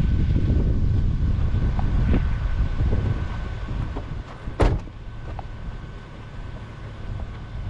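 Wind buffeting the microphone: a low rumble that eases off about halfway through. A single sharp click or knock follows just after.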